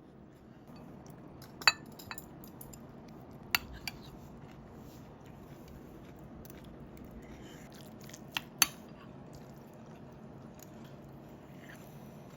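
Metal utensils clinking against dishes: about six sharp, ringing clinks in two pairs early on and a pair near two-thirds through, over a faint steady low hum.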